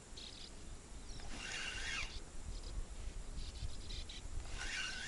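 Spinning reel being cranked in short spells of about half a second, twice, roughly three seconds apart: a stepped jig retrieve, with the lure dropping during each pause. A low wind rumble on the microphone runs under it.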